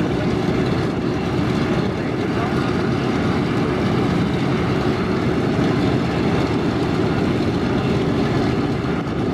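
Piston engines of a propeller aircraft running with a steady, loud, low rumble.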